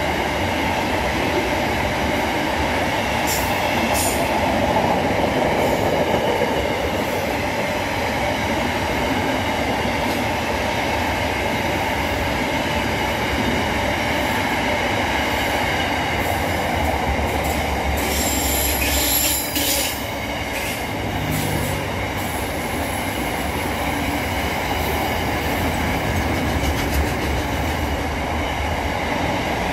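Freight train wagons rolling past at speed: a steady noise of steel wheels on rail throughout, with a brief high-pitched metallic wheel squeal a little past the middle.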